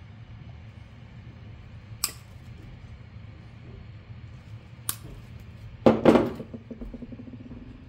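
Hand tools at work on electrical wire: two short sharp clicks a few seconds apart, then a louder metallic clatter about six seconds in that rings briefly as it fades.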